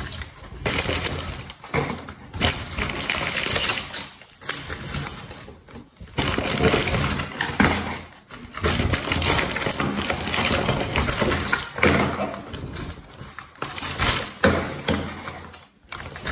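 Plastic shopping bag rustling and crinkling in irregular bursts with brief pauses, as grocery packages are pulled out and handled.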